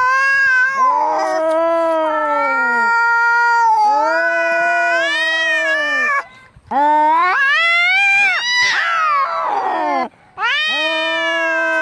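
Cats caterwauling in a fight: long drawn-out yowls that waver up and down in pitch, sometimes overlapping, with two brief breaks. These are the angry calls of cats squaring off.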